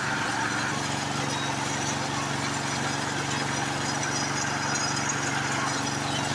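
Small four-stroke snowblower engine running steadily, just restarted after its flooded spark plug was dried, with petrol from a stuck carburettor float needle thinning the crankcase oil.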